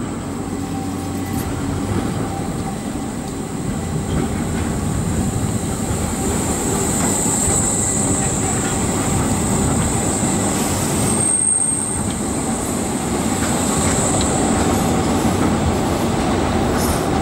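Škoda 15T low-floor trams rolling past close by on street track, their wheels rumbling on the rails with a thin high squeal. The sound builds over the first few seconds as a tram draws near.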